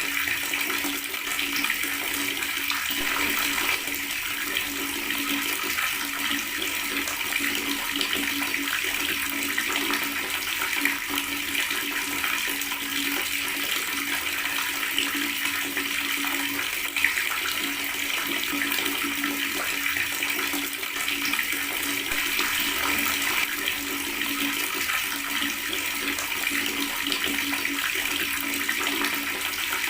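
Water running steadily from a tap, gurgling, with no break in the flow.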